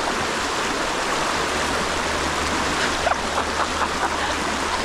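Fast, shallow stream rushing over rocks: a steady, even wash of water noise.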